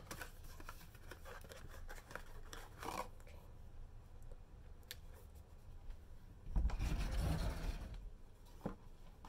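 Plastic jar of peeling pads being handled and its lid worked off, with scattered small clicks and rubbing. A louder, deeper rubbing comes about two-thirds of the way through, as hands and the lid brush close to the microphone.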